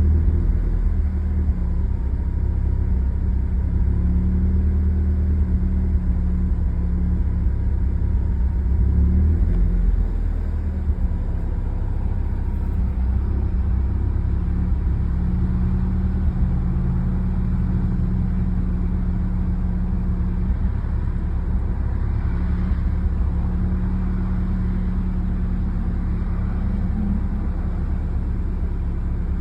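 2001 Mitsubishi Eclipse RS engine running steadily at idle, a low rumble that eases slightly about ten seconds in and keeps going without stalling.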